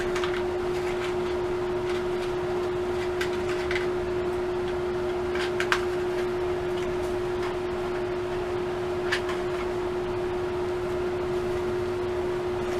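Steady low mechanical hum from a running appliance or fan, with a few scattered light clicks and taps, the sharpest just before the middle and another at about two-thirds of the way through.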